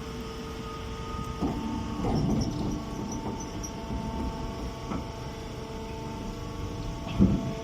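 A straw baling machine running: a steady mechanical hum with a few knocks, the loudest near the end.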